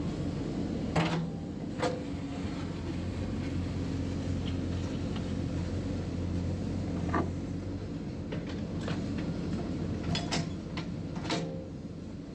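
JCB 3DX backhoe loader's diesel engine running steadily, with sharp metallic clanks from the machine's working parts about 1, 2, 7, 10 and 11 seconds in.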